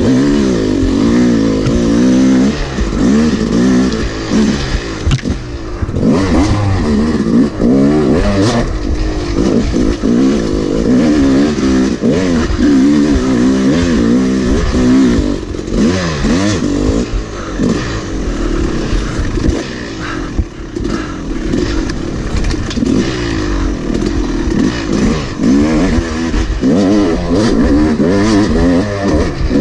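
Yamaha YZ250 single-cylinder two-stroke dirt bike engine revving up and down as the throttle is worked constantly along a rough trail, with knocks and clatter from the bike over the bumpy ground.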